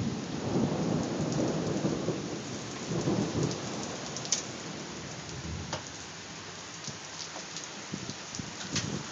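Thunder rumbling and dying away over the first few seconds, over steady rain with a few sharp drips.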